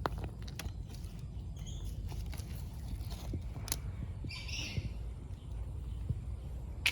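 A steady low rumble with scattered small clicks and rustles, and a brief bird chirp about four and a half seconds in.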